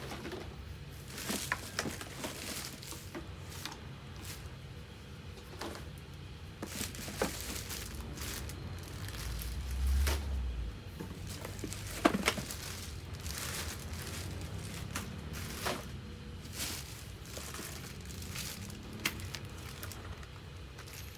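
Packaging crinkling and rustling as parts of a ride-on toy car are unpacked and handled, with scattered clicks and knocks of plastic pieces and one low thump about halfway through.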